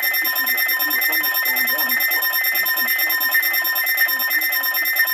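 Electronic emergency alert tone of a severe thunderstorm warning: beeps alternating between a high and a low note several times a second over a steady high whine.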